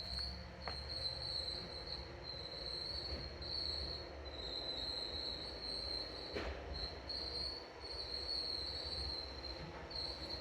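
A high-pitched chorus of insects trilling steadily, swelling and fading in waves, over a low background rumble, with a faint knock about six seconds in.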